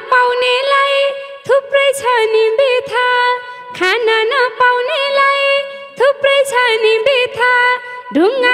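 Nepali live dohori folk music: a melodic lead line slides up into long held, wavering notes in phrases about two seconds apart, over steady hand-drum strokes.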